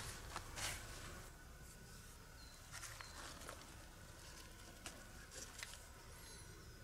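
Faint rustling and a few small clicks of a cord being pulled tight and worked through a tarp's corner loop by hand, with a few faint high bird chirps, one near the end.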